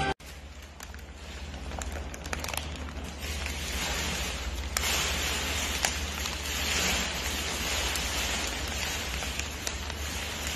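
Crumpled plastic snack-chip bag crinkling and crackling as a raccoon handles it with its paws and burrows its face into it, louder in the middle, over a steady low hum.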